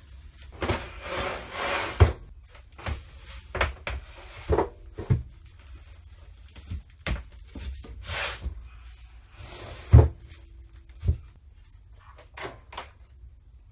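Irregular knocks, clunks and rustling of objects being handled and moved about in a small room, with a louder thump about two seconds in and the loudest about ten seconds in.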